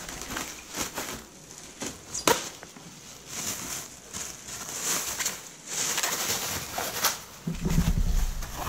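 Plastic film and a plastic bag crinkling and rustling as a wrapped piece of meat is handled, with scattered sharp crackles. A low rumble of handling comes in near the end as the meat is lifted.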